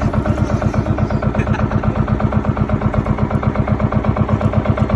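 Engine of a small motorized outrigger boat running steadily under way, an even, rapid chugging of about nine beats a second.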